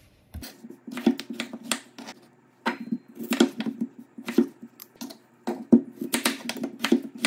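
Chef's knife cutting peeled raw potatoes into large cubes on a wooden cutting board: irregular knocks of the blade through the potato onto the board, a few a second, with a short pause about two seconds in.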